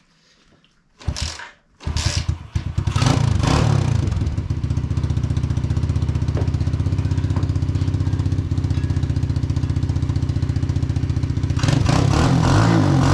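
Engine of a Hawk 125 dirt bike catching after a short burst of noise about two seconds in, revved briefly, then idling steadily, and revved again near the end.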